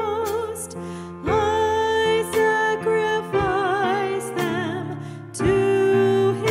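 A woman singing a slow song with vibrato on long held notes, accompanied by keyboard and bass guitar.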